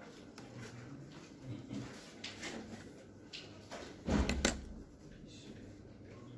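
Light handling clicks of a stainless-steel link watch bracelet being moved on a workbench, with a louder clatter of two quick knocks about four seconds in as the watch is set down.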